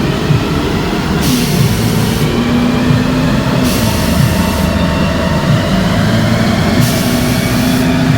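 Mercedes-AMG C43's twin-turbo V6, fitted with upgraded turbos, running hard on a chassis dyno with a steady engine note. Three bursts of hiss, each about a second long, come at intervals of a few seconds.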